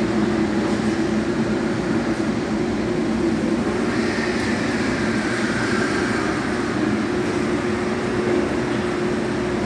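Powder-coating line equipment running: a steady low mechanical drone like a large fan, with a faint whistle that slides slowly down in pitch from about four seconds in.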